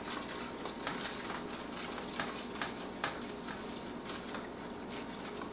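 A spoon stirring salt water in a plastic container, making light, irregular clicks and scrapes against the sides.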